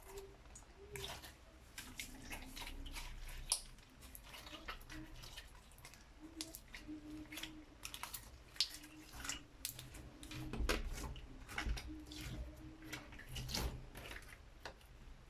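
Clear slime being worked by hand or stirred, making many irregular wet squelches and sticky clicks.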